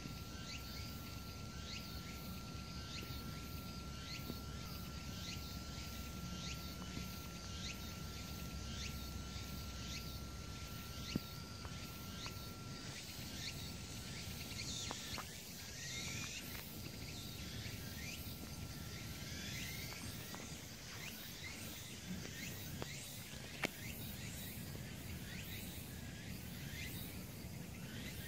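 Woodland ambience of insects and birds: a constant high insect hiss with many short falling chirps scattered through it. A faint steady whistle-like tone runs beneath and stops about two-thirds of the way through, and there are two brief knocks.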